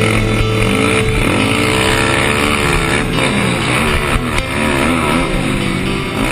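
Sport quad (ATV) engine under hard riding, its pitch rising and falling over and over as the throttle is opened and closed.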